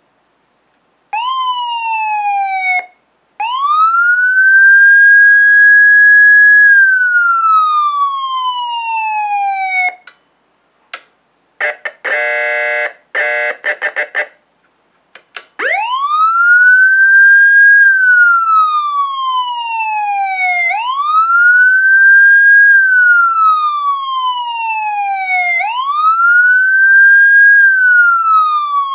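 SVP SA450 electronic siren, heard through its speaker. It is first wound up and let fall back by hand twice, the second time climbing to a high held note and then sliding slowly down. Next come a few seconds of short, choppy blasts of a buzzing horn tone, and then a steady wail that rises and falls about every five seconds.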